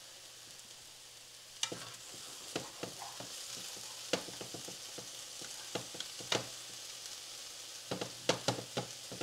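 Ground chicken sizzling in oil in a hot nonstick frying pan, with a fork-shaped sauté tool scraping and tapping on the pan as the meat is broken up. The tapping starts about a second and a half in and comes in irregular clusters, with several quick taps near the end.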